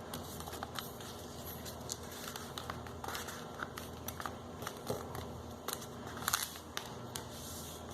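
A sheet of sulfite printer paper being folded and creased by hand: scattered soft rustles and crinkles with a few sharper clicks, the loudest about five and six seconds in.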